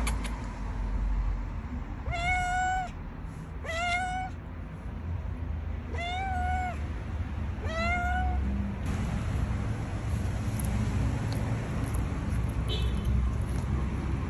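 A tabby cat meowing four times, about two seconds apart: drawn-out calls that rise and then hold their pitch.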